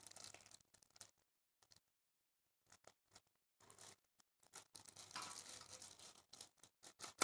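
Faint crinkling and rustling of clear plastic wrap on a copper water bottle as it is handled, in scattered short ticks with a longer stretch of rustle about five seconds in and near silence between.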